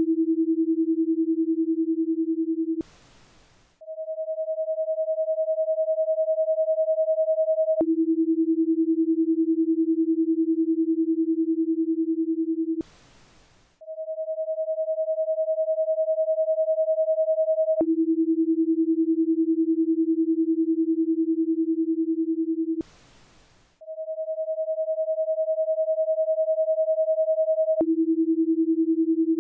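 Paced-breathing guide tones in a ten-second cycle: a steady higher tone for four seconds to breathe in, then a tone about an octave lower for five seconds to breathe out, then about a second's pause with only a faint hiss. The cycle comes round about three times, and the higher tone swells in after each pause.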